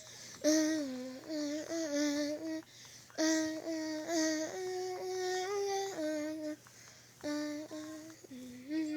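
Phone ringtone playing a simple melody of held notes through the phone's small speaker, in short phrases with brief gaps between them.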